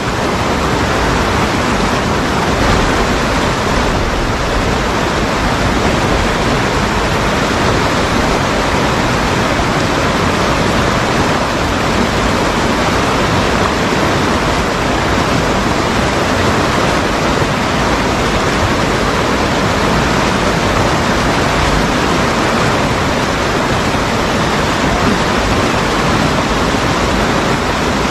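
River water rushing over a low weir and between rocks, a steady loud rush of white water.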